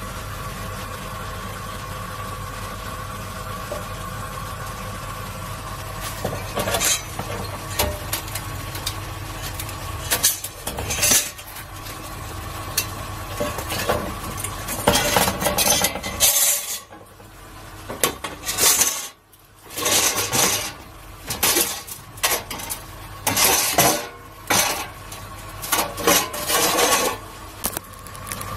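Stainless steel pieces being handled and moved about on a metal work surface: irregular metallic clinks, clatters and scrapes starting about six seconds in. Under them runs a steady machine hum that drops out briefly about halfway through.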